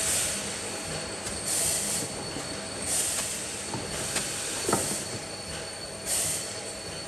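Composite-pack production line running: a slat-chain conveyor carrying paper packs, with steady mechanical noise and a thin high whine. Short bursts of hiss come about every second and a half, with a few clicks and a brief squeak near the middle.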